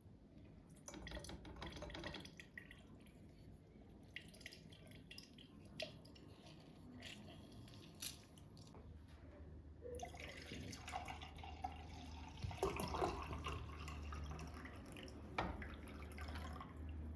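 Water running and dripping in a kitchen sink, with a few sharp clicks and clatter of dishes.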